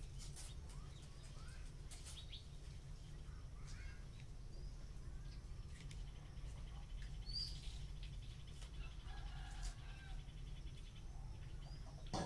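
Faint bird chirps and short calls over a steady low hum, with a quick trill in the middle of the stretch.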